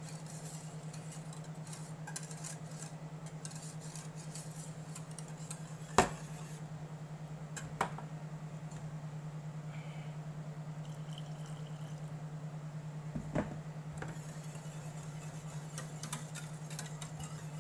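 Wire whisk stirring thick béchamel sauce in a stainless steel saucepan, its wires clicking and scraping against the pan, with a few sharper knocks, the loudest about six seconds in. A steady low hum runs underneath.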